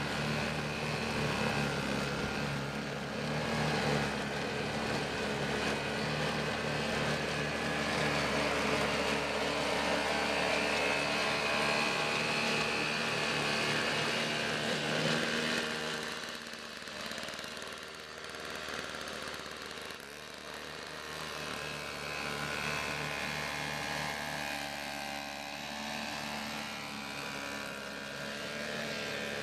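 Single-stage snowblower's small engine running steadily under load as it is pushed along, throwing snow; it drops a little in level about halfway through.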